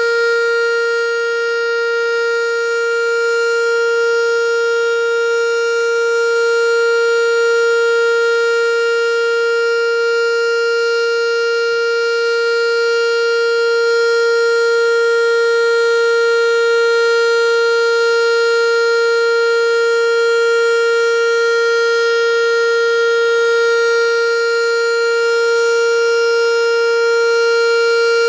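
American Signal T-112 outdoor warning siren sounding the steady alert signal: one loud, held tone with many overtones, unchanging in pitch.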